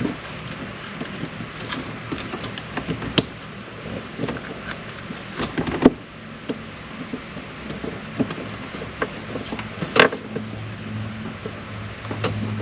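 Scattered clicks and knocks of a part and tools being handled on a truck while someone tries to work the part into place, with sharper knocks about three, six and ten seconds in. A low steady hum starts near the end.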